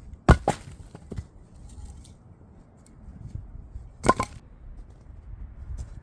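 Sawn firewood junks knocking against one another as they are tossed onto a pile: a sharp wooden clatter of two or three knocks about a third of a second in, and another loud knock a little after four seconds.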